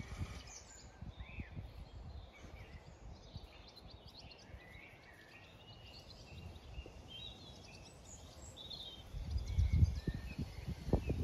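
Small birds chirping faintly in the background, with a low rumble coming in about nine seconds in.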